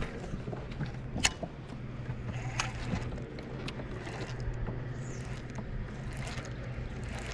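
Steady low hum of a bow-mounted electric trolling motor, with a few sharp clicks from a baitcasting reel and rod being handled, the loudest about a second in.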